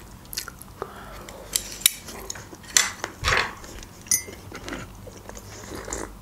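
Close-miked mukbang eating sounds: chewing and mouth clicks with small clinks of chopsticks and dishes. A porcelain cup clinks briefly about four seconds in as it is picked up, and coffee is sipped near the end.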